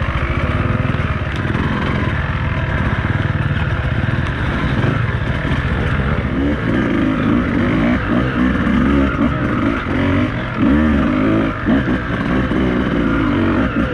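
Beta 200RR two-stroke enduro motorcycle engine running hard on a trail, held steady at first. From about halfway through, the revs rise and fall again and again as the throttle is worked.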